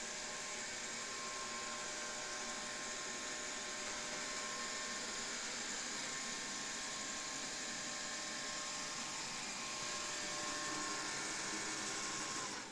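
Mi Robot Vacuum Mop 2 Ultra robot vacuum running with a steady whir and hiss under a high hum while it returns to its charging dock. Right at the end its motor winds down with a falling whine.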